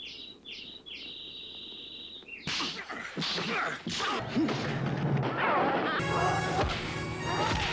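Film soundtrack: a high held tone for the first couple of seconds, then a fast run of fight sound effects, with repeated punch whacks and crashes. Music comes in about six seconds in.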